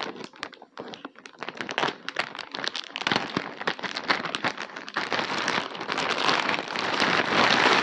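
Packaging crinkling and rustling as it is handled and opened by hand, a spatter of crackles that grows denser and louder toward the end.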